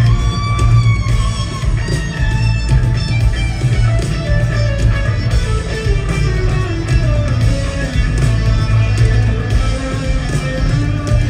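Live rock band playing an instrumental passage, led by an electric guitar with long, bending notes over a steady, heavy bass.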